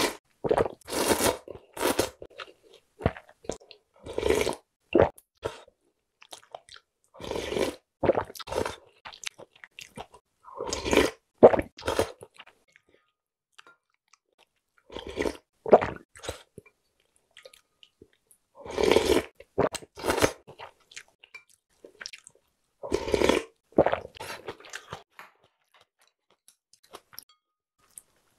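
Close-up eating sounds: slurping of thin wheat noodles and broth from a spoon, followed by chewing, in separate clusters every few seconds with short quiet gaps between them.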